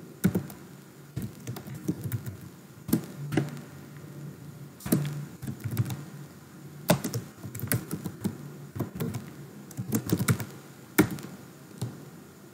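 Typing on a computer keyboard: irregular key clicks in quick runs separated by short pauses.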